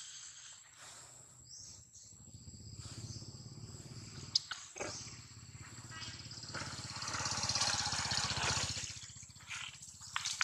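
Baby long-tailed macaque crying in a hoarse, raspy voice that swells louder about seven seconds in, with a couple of sharp clicks midway.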